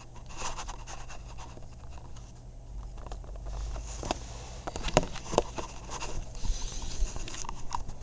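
Handling noise as the pull station and camera are picked up and moved: rustling, with scattered sharp clicks and knocks over a low steady hum.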